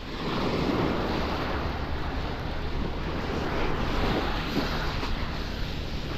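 Small waves washing onto a shingle beach, with wind buffeting the microphone.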